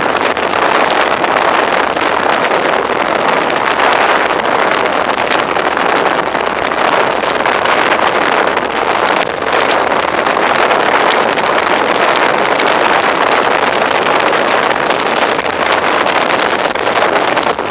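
Motorboat running at speed in through the surf toward the beach, with the water rushing past the hull and wind buffeting the microphone into a steady, loud roar of noise.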